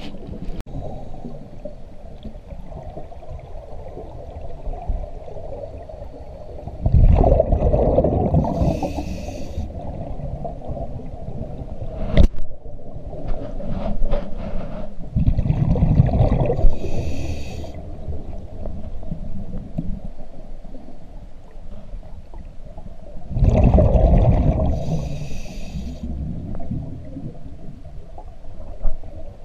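Scuba diver breathing through a regulator underwater: three breaths about eight seconds apart, each a rumbling, gurgling rush of exhaled bubbles and a hiss of air through the regulator. A single sharp knock sounds about twelve seconds in.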